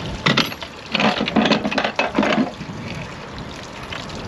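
Water splashing and trickling at a fish-transport tank's outlet valve while a PVC pipe is being coupled to it. There are irregular bursts of handling noise, the busiest in the first half.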